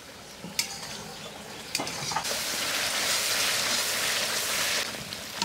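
Spice masala of garlic and cumin pastes with turmeric and chilli powder frying in oil in a pan while being stirred. A few taps of the stirring spoon on the pan come in the first two seconds, then a steady sizzle from about two seconds in.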